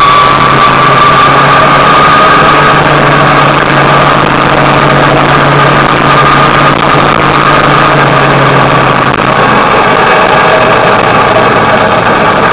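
Motorcycle engine running at a steady cruise under loud, constant wind and road noise, its pitch rising slightly over the first few seconds. A deep part of the hum drops away about nine and a half seconds in.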